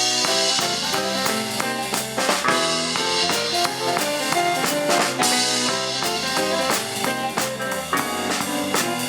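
Live band playing a fast number with a drum kit, with quick runs of pitched notes over a steady drum beat.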